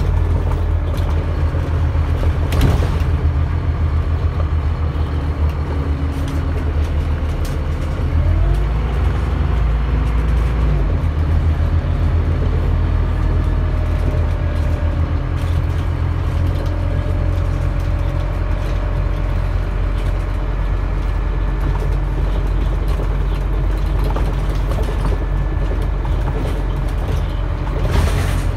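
A bus's engine and drivetrain running, heard from inside the passenger saloon while the bus drives along: a steady deep drone with a faint whine that rises in pitch as it pulls away about eight seconds in. A sharp knock or rattle from the bus comes about three seconds in and again near the end.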